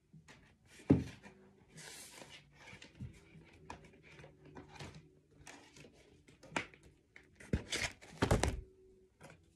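Objects being handled and set down while tidying a room: a sharp thump about a second in, scattered rustling and small knocks, and a cluster of louder knocks near the end.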